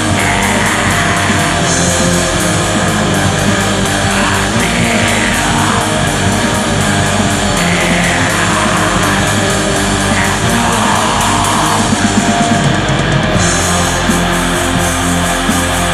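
Black metal song: distorted electric guitars over fast drumming, a dense wall of sound at a steady loud level.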